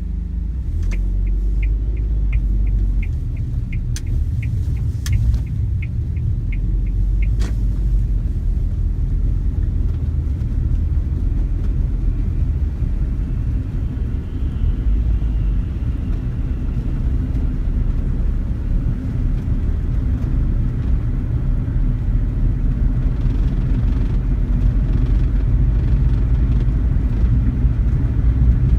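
Cabin noise of a Suzuki Wagon R Stingray (MH34S) driving, a steady low road and engine rumble. For the first seven seconds or so an even ticking runs about twice a second, with a few sharp clicks.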